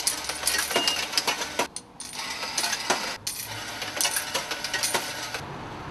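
Quarters dropping one after another into a bus fare box: a quick run of metallic clinks and rattles that stops about five and a half seconds in.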